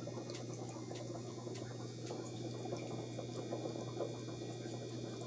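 Aquarium sponge filter bubbling, water splashing and trickling steadily, over a low steady hum, with a few small ticks scattered through.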